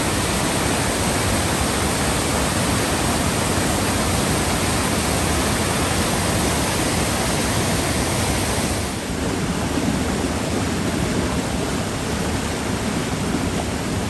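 Waterfall and white-water rapids rushing steadily, with a slight dip and shift in tone about nine seconds in.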